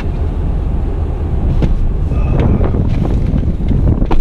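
Wind buffeting the microphone, a loud uneven low rumble, with a few light knocks and rustles as a person climbs into the pickup's driver's seat.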